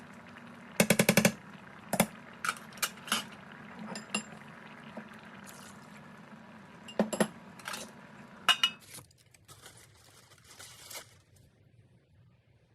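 Metal dishes and a cooking pot being handled: a quick rattle of clinks about a second in, then scattered single clinks and knocks, over a steady low hum that stops about nine seconds in.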